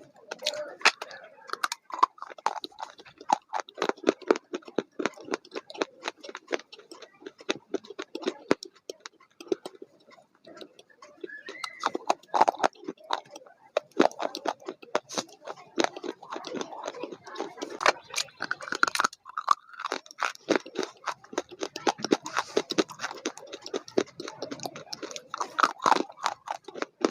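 Close-up chewing and crunching of food, a dense run of irregular crunches and mouth clicks.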